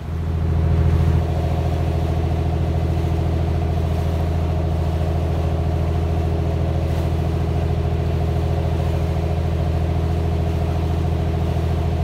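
Boat engine running steadily, a low, even drone heard from on board the moving boat. It starts abruptly and is a little louder in the first second.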